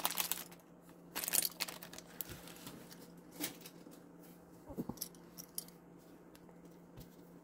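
A small packet of minifigure parts is handled and opened, with two short bursts of rustling in the first two seconds. A few faint light clicks follow.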